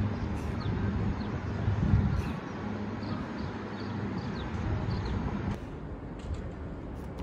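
Outdoor city background: a steady low traffic rumble with small birds chirping now and then. The background changes abruptly about five and a half seconds in and turns quieter and duller.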